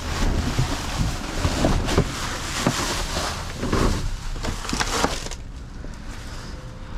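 Rummaging through dumpster contents: rustling and clattering of handled items, with many short knocks, easing off about five seconds in.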